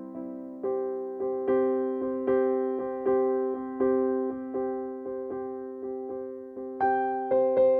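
Background keyboard music, a calm piano melody of single struck notes that each fade away, about two notes a second. It grows louder and brighter near the end.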